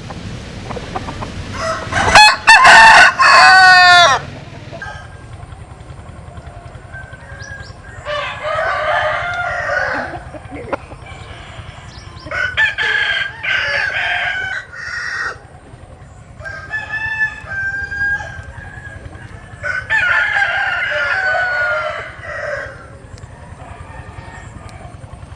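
Gà nòi (Vietnamese game fowl) roosters crowing in turn: one loud, close crow about two seconds in, then four quieter crows over the rest.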